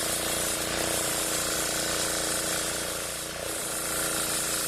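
Home-built circular sawmill running steadily with a constant hum and a high hiss, which dips briefly about three and a half seconds in.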